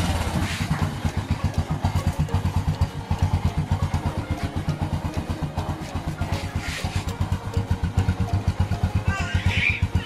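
Small motorcycle engine idling steadily with an even, rapid pulsing exhaust beat. A brief chirping sound comes in near the end.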